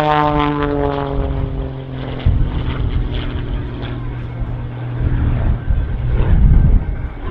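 Edge 540 aerobatic plane's propeller engine, its drone sliding down in pitch and fading over the first second or two, then a lower, rougher rumble that swells again near the end.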